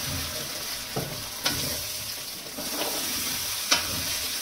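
Mor kali batter of rice flour and sour buttermilk sizzling in oil in a pan while it is stirred, with a few sharp clicks of the spoon against the pan.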